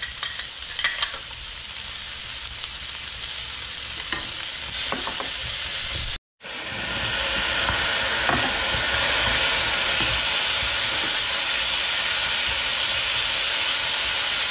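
Tomato-chilli sauce with diced vegetables sizzling in a frying pan while a metal spoon stirs it, with a few light clicks of the spoon against the pan. The sound drops out for a moment about six seconds in, then the sizzle comes back steadier and a little louder.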